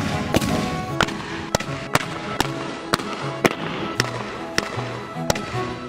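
Gunpowder going off with a hissing burst at the start, then sharp cracks roughly twice a second as it burns, over background music with sustained low notes.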